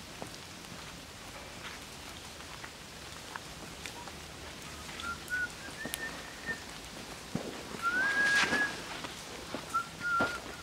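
Steady forest background with a series of short, flat whistled calls from about halfway through. The longest and loudest rises into a held note about eight seconds in, and two or three brief ones follow near the end.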